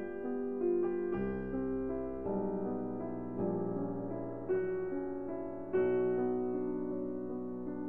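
Slow background piano music, with new notes and chords struck about once a second and held.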